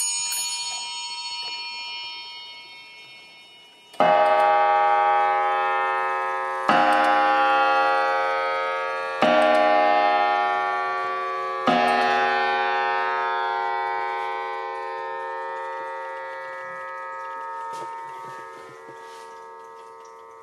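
English bracket clock striking the hour: four strokes about two and a half seconds apart, each ringing on and slowly fading. The last notes of its eight-bell chime die away before the first stroke.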